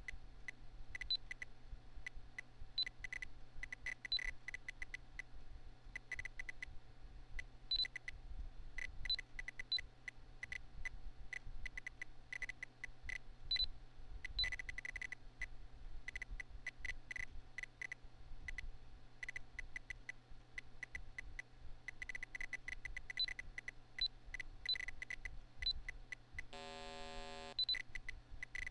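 A PC's internal speaker giving short, irregular high beeps, mostly marking magnitude 6 earthquakes as the program plots them, over the steady low hum of the computer's fan. Near the end comes one longer, lower note lasting under a second, the program's signal for a magnitude 8.5-plus quake.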